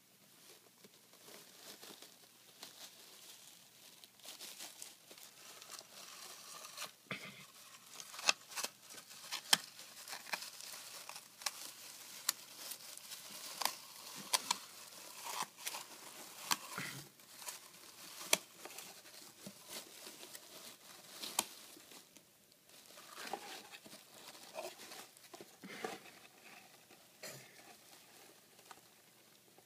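Dry wood-shaving bedding rustling and crackling as a pet hedgehog burrows and rummages through it: irregular light crackles and crunches, busiest in the middle and briefly easing off about two-thirds of the way through.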